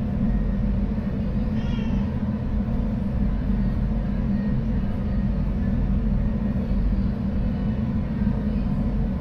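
A cat meows briefly about two seconds in, over a steady low rumble.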